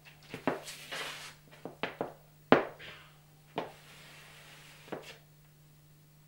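Heeled flamenco shoes tapping and stamping on a wooden dance floor in sevillanas steps: about ten irregular strikes, the loudest about two and a half seconds in, with a few brushing swishes between them, stopping about five seconds in.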